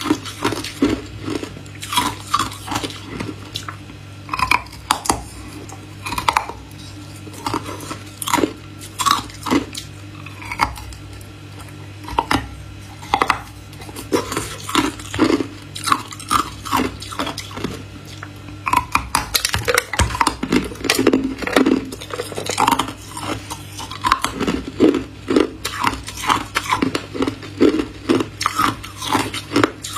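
Close-up ice eating: a person biting and chewing thin pieces of ice. It makes many sharp, irregular cracks and crunches throughout.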